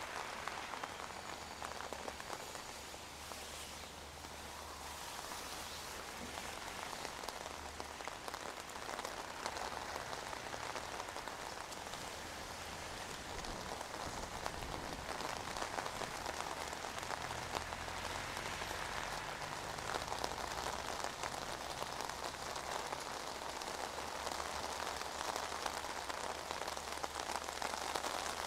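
Steady rain: a dense, even patter of drops on wet pavement, foliage and an umbrella held overhead.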